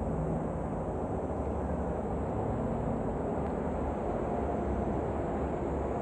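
Steady low rumbling background noise with a faint thin high tone above it; the cicada in view is not singing.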